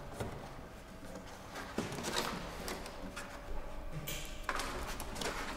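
Light clicks and scrapes of a screwdriver and fingers working the metal rim and trim of a car headlight loose, in short irregular bursts.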